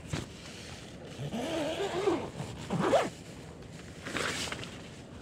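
Zipper of a two-person Decathlon tent's door being pulled open: one long wavering drag, then a quicker stroke that rises in pitch, and a short scrape near the end.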